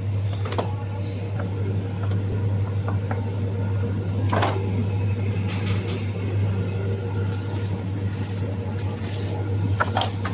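Items knocking into a plastic shopping basket as they are put in, a few separate knocks with light clatter, over a steady low hum.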